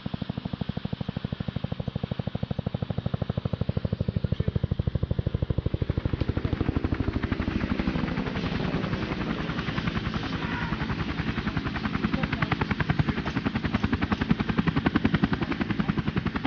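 Helicopter rotor chopping in a fast, even beat, growing louder about six seconds in.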